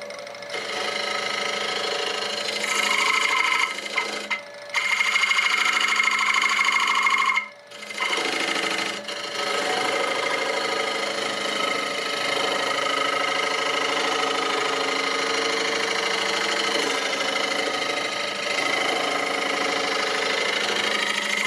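Wood lathe running with a tool working against the spinning wooden piece, rounding over its edges; the sound drops away briefly twice, around 4 and 7.5 seconds in, as the tool comes off the wood.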